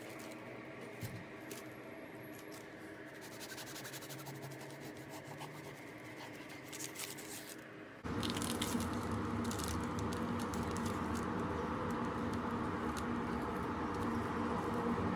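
Crackling of a crusty loaf's crust being handled and broken open by hand. About halfway through, a louder, steadier scraping takes over as a table knife spreads butter across a slice of the bread.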